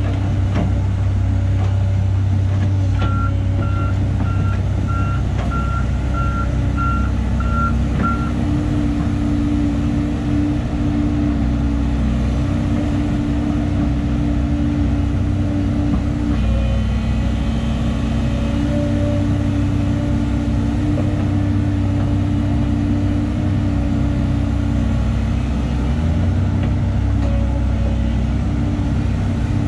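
Volvo EC210 crawler excavator's diesel engine running steadily under working load. A backup alarm beeps about twice a second for roughly five seconds near the start.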